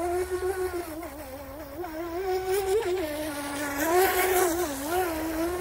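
Henglong Tornado RC boat's brushless outrunner motor whining as the boat runs hard turns on the water, its pitch wavering up and down with the throttle. A brief hiss comes about four seconds in.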